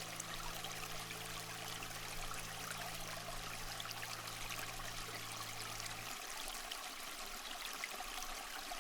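Steady trickling, stream-like water sound, with a low held drone underneath that stops about six seconds in.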